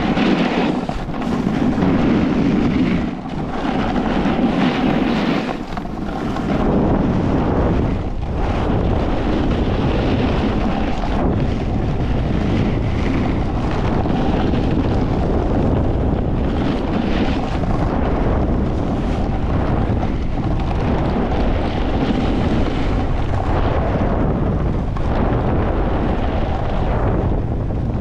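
Wind rushing over the microphone during a fast snowboard descent, with the board scraping over packed, tracked piste snow. It is a loud, steady noisy rush with a heavy low rumble that swells and eases a little with the turns.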